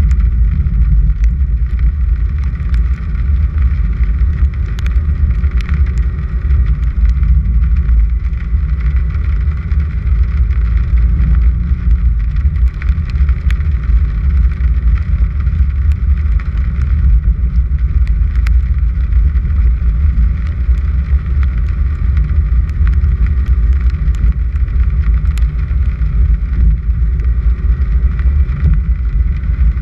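A car driving slowly up a gravel road: a steady low rumble of engine and tyres on gravel, with scattered small ticks over it.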